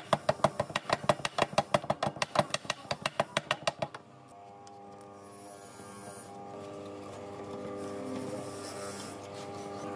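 A hand scraper chipping and scraping caked rust and grime off the rusted metal base of an old stone grinder, in quick strokes about five a second. The strokes stop about four seconds in, leaving soft background music.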